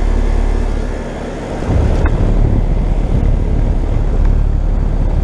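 Carrier Comfort Series central air conditioner condenser units running, their outdoor fans and scroll compressors making a loud, steady low rumble. The rumble dips briefly about a second in.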